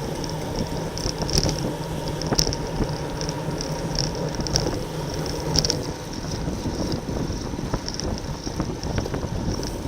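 Wind rush and road noise on a bicycle-mounted camera riding in a racing peloton, with a faint steady hum and a few sharp clicks.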